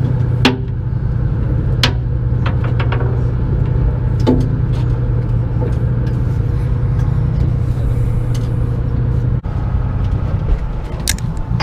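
The fishing boat's engine running in a steady low drone, with a few sharp clicks in the first few seconds from fishing tackle being handled.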